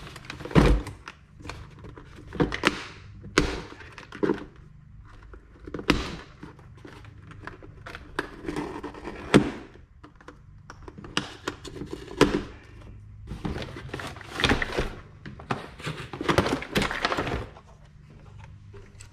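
Cardboard box and packaging being opened and handled: irregular thunks and knocks mixed with short scrapes and rustles of cardboard and plastic, with a sharp thud about half a second in.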